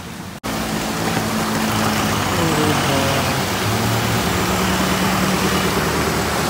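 Motor vehicles running through deep floodwater: steady low engine noise under the wash and splash of water pushed aside by the wheels. It starts abruptly after a short dropout about half a second in.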